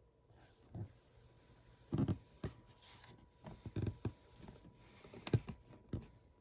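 Scattered handling noises: irregular soft thumps and clicks, the loudest about two seconds in and again a little after five seconds.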